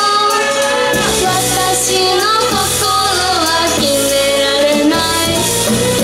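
Female idol singers performing a pop song live, their voices carrying the melody over upbeat pop accompaniment.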